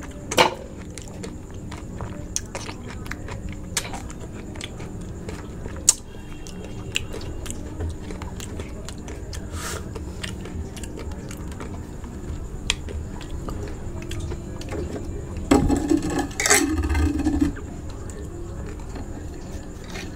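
Close-up eating of raw aloe vera: sparse wet clicks and small crunches, with a louder cluster of crunchy chewing about sixteen seconds in.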